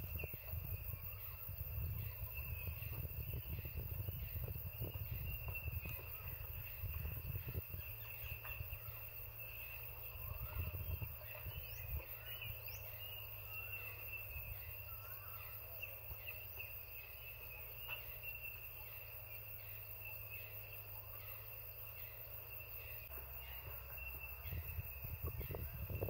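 Forest ambience: insects trilling steadily at a high pitch while small birds give short chirps and whistles throughout, over a low rumble.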